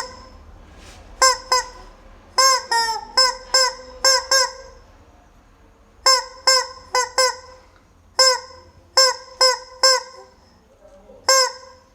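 Rubber chicken squeak toy giving short, loud, honking squeaks, in quick runs of two to five with short pauses between.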